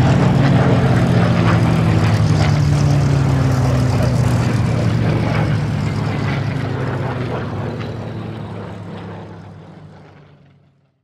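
Supermarine Spitfire PR.XI's Rolls-Royce Merlin V12 engine and propeller in a fly-past. The engine note sinks slowly in pitch as the aircraft passes, then fades away to nothing over the last few seconds.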